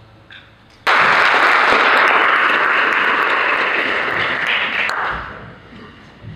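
Audience applauding, breaking out suddenly about a second in and dying away after about four seconds.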